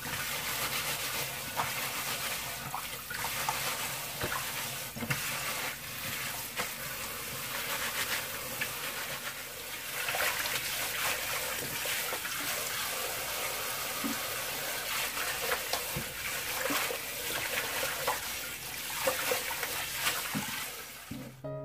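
Kitchen tap running steadily into a stainless steel sink while hands rub and swish bunches of garlic chives under the stream, with small irregular splashes.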